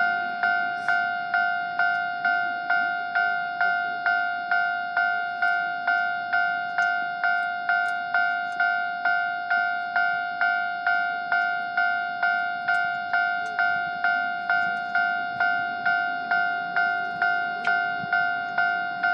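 Japanese railway level crossing warning bell ringing its repeated two-tone ding, about two strokes a second, each stroke fading before the next: the crossing alarm sounding while the barrier is down for a train.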